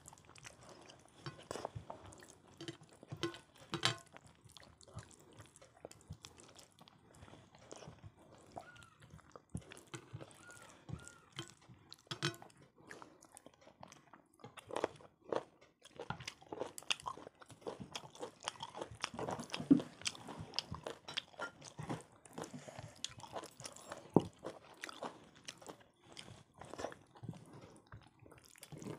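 Close-up eating sounds of people eating khichdi, chicken kosha and fried brinjal: irregular chewing, biting and crunching with frequent short sharp clicks.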